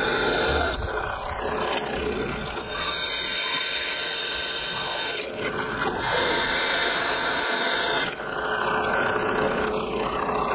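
Benchtop drill press running, its bit boring into a steel plate, with a steady whine.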